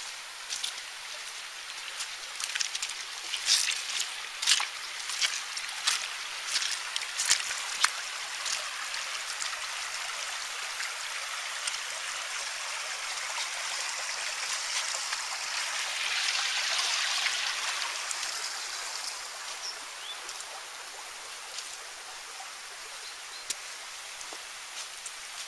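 A small stream running, a steady rushing hiss that swells to its loudest a little past the middle and then eases off. Sharp clicks and crackles stand out over it through the first several seconds.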